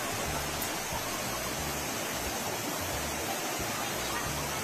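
River rapids rushing over rocks: a steady, even rush of white water.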